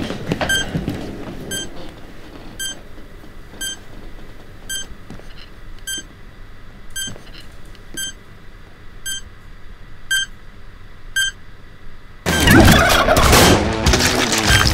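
Electronic oven-timer beep repeating about once a second in a hushed room. About twelve seconds in, a sudden loud, warbling turkey gobble sound effect bursts in.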